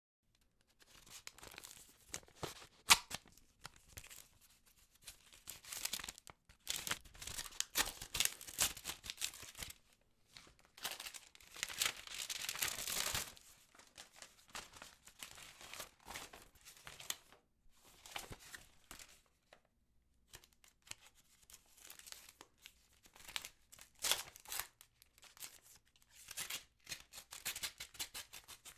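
A paper envelope being torn open and handled: bursts of paper tearing and crinkling with short pauses, a sharp snap about three seconds in, and a longer continuous tear near the middle.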